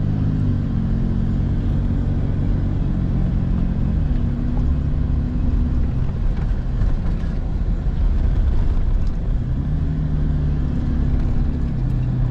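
Engine and road noise heard from inside a moving vehicle's cabin: a steady low engine hum over tyre rumble. Its pitch drops just after the start and again about four seconds in, then climbs again near the end.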